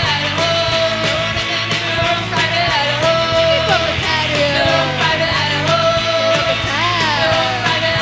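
Live garage-pop band music with a punk-rock feel: a full band playing loudly and steadily, with a held high note and bending lines over it.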